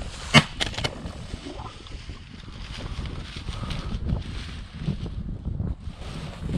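A single loud shotgun shot about half a second in, followed by a couple of faint clicks, then wind buffeting the microphone.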